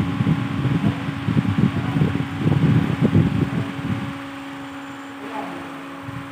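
Steady mechanical hum with a constant low tone, under a heavy low rumbling flutter that eases off about four seconds in.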